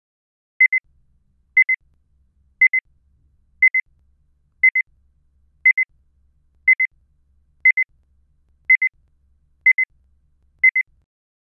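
Electronic timer beeps: a pair of short high pips about once a second, eleven pairs in a row, evenly spaced.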